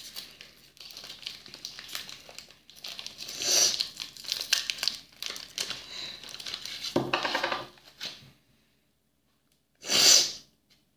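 A Reese's Crunchy Cookie candy wrapper being torn open and crinkled by hand for about eight seconds. About ten seconds in there is one short, loud nasal burst from a stuffy nose.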